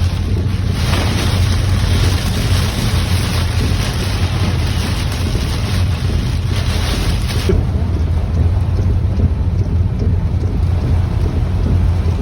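Heavy rain pelting a car in a windstorm over a steady low cabin rumble from the car. The hiss of the rain cuts down sharply about seven and a half seconds in, leaving mostly the rumble.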